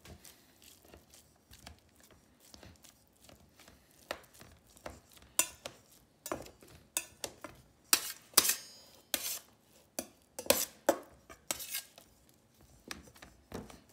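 Chef's knife chopping boiled chicken meat finely in a stainless steel bowl, the blade knocking and scraping on the metal in an uneven run of sharp clicks. The strokes are light at first and grow louder and more frequent from about four seconds in.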